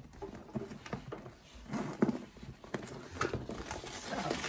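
Handling noise of a coated-canvas shoulder bag being turned over and opened: irregular taps and clicks, the loudest about two seconds in.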